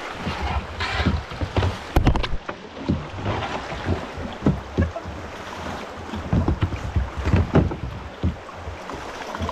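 Shallow river rapids rushing around a kayak, with irregular splashes and low thumps. There is a sharp knock about two seconds in.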